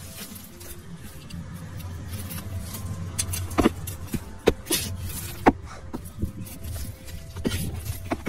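Digging through potting soil in a large container to unearth potatoes: rustling scrapes and several sharp knocks, loudest in the middle, over a steady low rumble.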